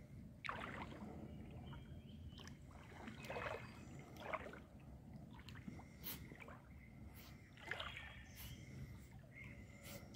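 Faint sloshing and splashing of water as a young puppy dog-paddles through shallow water, in soft irregular strokes.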